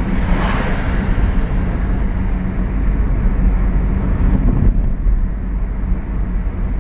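Steady low rumble of a vehicle driving on the road, engine and tyre noise, with a brief rushing swell about half a second in.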